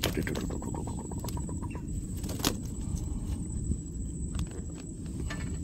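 Wind rumbling on the microphone, with light irregular clicks and ticks from the fishing line and reel as a hooked mullet is reeled in. One click about two and a half seconds in is sharper than the rest.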